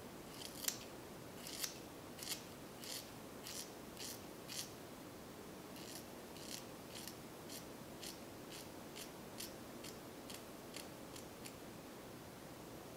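Annie hair shears snipping the ends of long, straight wig hair to blunt them: a run of light, crisp snips, about two a second, fainter in the second half.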